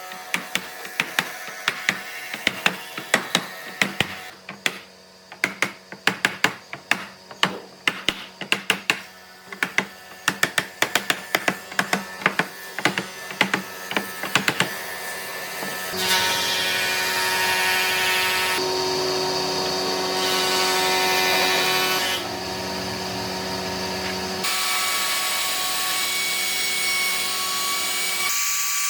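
Woodworking: for about half the time, a quick, irregular run of sharp knocks of a tool striking wood. Then a power tool starts and runs steadily, its sound shifting a few times as it works.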